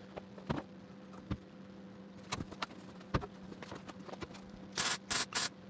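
MIG welder working a seam on thin, corroded Mini bodywork in short bursts: three brief crackling hisses close together about five seconds in, after scattered sharp clicks, over a faint steady hum.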